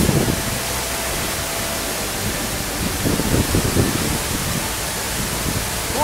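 Large waterfall, about 72 metres high, crashing down close by: a steady, loud rushing of falling water.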